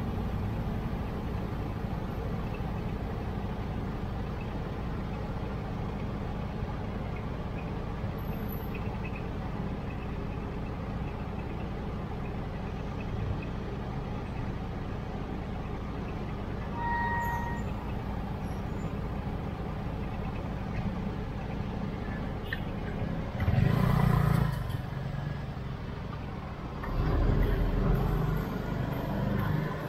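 Busy road traffic heard from a bicycle in the flow: a steady din of engines and tyres. A short beep sounds about halfway through, and two loud swells of engine rumble come near the end as heavier vehicles come close.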